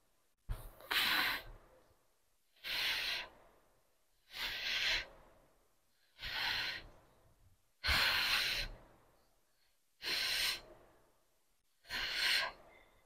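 A woman's hard, forceful breaths under exertion, seven in all, about two seconds apart, in time with each rep of weighted glute bridges.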